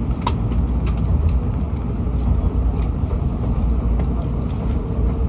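Shinkansen bullet train running, heard inside the passenger car: a steady low rumble with a few faint clicks.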